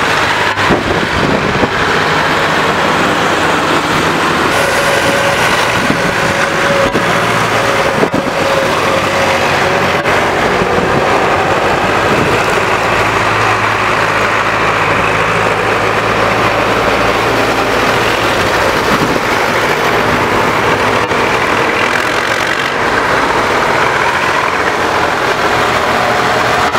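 A line of diesel farm tractors driving past one after another, their engines running steadily, with tyres swishing on the wet road.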